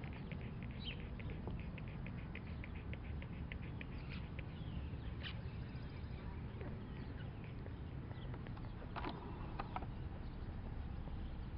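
Five-week-old Norwich Terrier puppies nursing: faint high-pitched squeaks and suckling clicks, a quick even run of them in the first few seconds and a louder one about nine seconds in, over a steady low rumble.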